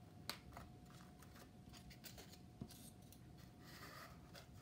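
Near silence with faint rubbing and a few light clicks as notched black foam board pieces are slid together by hand, over a faint steady hum.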